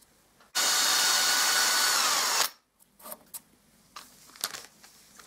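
Power drill boring a small pilot hole into a painted wooden board, running steadily for about two seconds, its motor whine dropping in pitch as it slows and stops. A few light clicks follow.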